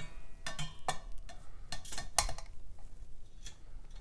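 Irregular light metallic clicks and clinks of ceiling fan hardware being handled and fitted: screws and metal mounting parts knocking together, one near the start ringing briefly.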